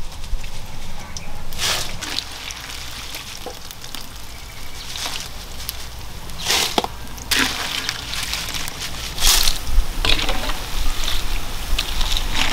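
Hot oil trickling and dripping from a wire skimmer back into a wok as fried water beetles are lifted out. Several sharp rattles of the crisp beetles and the skimmer against an aluminium bowl as they are tipped in.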